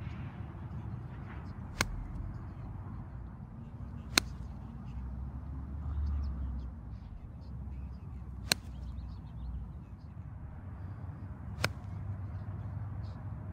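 Golf iron striking balls off grass: four sharp clicks, a few seconds apart.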